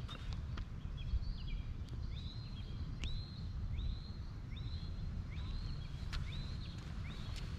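A small songbird calling outdoors, one short hooked chirp repeated about every two-thirds of a second, over scattered footstep clicks and a steady low rumble.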